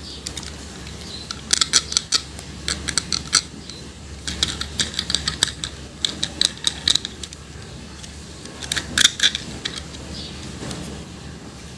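Clusters of sharp clicks and light clatter from hard plastic toys and packaging being handled and opened, with pauses in between.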